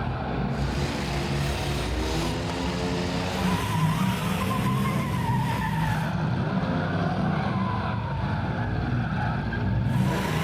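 Several big domestic cars' engines revving hard together, with tires squealing in wavering glides from a few seconds in.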